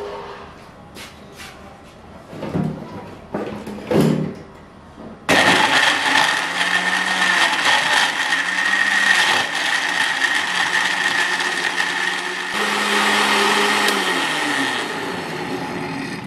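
A few knocks and clicks, then about five seconds in an electric countertop blender starts suddenly and runs for about ten seconds, its glass jar full of peach slices, ice and water being blended to a purée. Its pitch shifts about seven seconds after starting, and it winds down near the end.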